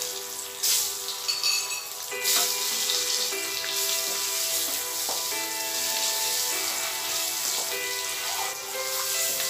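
Peeled boiled eggs sizzling as they fry in hot oil spiced with turmeric and chilli powder in a kadai. The sizzle flares up twice early on as more eggs go into the oil, then settles into a steady frying hiss as a wooden spatula turns them. Soft background music with held notes plays underneath.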